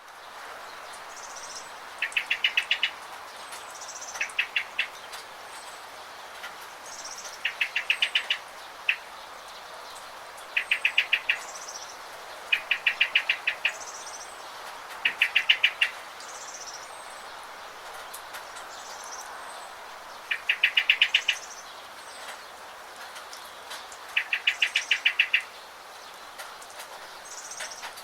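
Birds singing: a loud, rapid trill of about eight to ten quick notes repeated every two to four seconds, with fainter, higher short chirps in between, over a steady background hiss.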